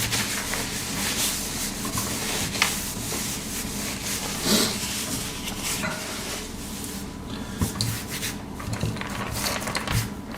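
Hands handling a small zipper puller close to the microphone: continuous rubbing and rustling with scattered light clicks, and a louder scrape about four and a half seconds in.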